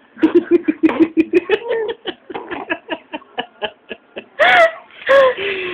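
A four-month-old baby making noises with her mouth: a quick run of short laugh-like voice pulses, then a string of wet lip-smacking clicks about five a second, and a wavering squeal about four and a half seconds in.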